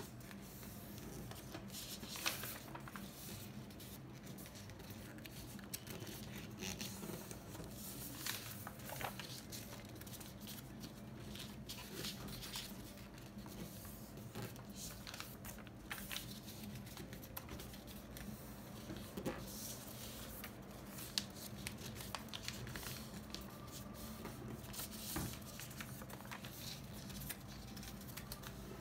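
A sheet of printed paper being folded and creased by hand on a wooden tabletop: scattered rustles, crinkles and light taps, with a few sharper clicks, over a steady low hum.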